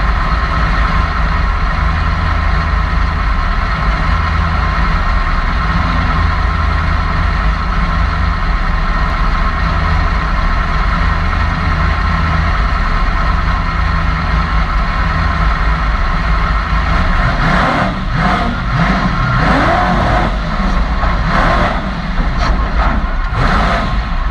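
PRO4 short course race truck's engine idling steadily, heard close up from the truck itself. About seventeen seconds in it revs hard and the truck launches, the engine note rising and falling repeatedly as it accelerates, with sharp cracks of noise among the revs.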